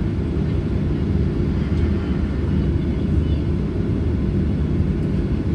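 Steady low rumble inside a Boeing 737-800's passenger cabin: engine and air-conditioning noise heard from a forward window seat, even and unchanging.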